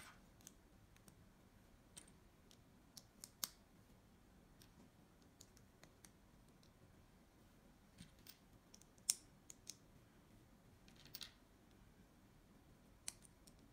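Small plastic building bricks being pressed and snapped together by hand, giving a scatter of sharp, irregular clicks with quiet between them; the loudest click comes about nine seconds in.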